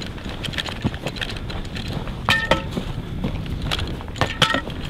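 Running footsteps crunching through snow, with the shooter's carried gear rattling and jingling at each stride. Twice, about two seconds in and again near the end, a short metallic ring stands out.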